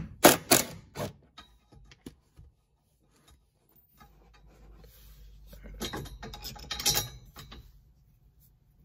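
A few sharp metallic clicks from a socket tool on the harness bar's floor bolt. A few seconds later comes a stretch of rubbing and clattering handling noise.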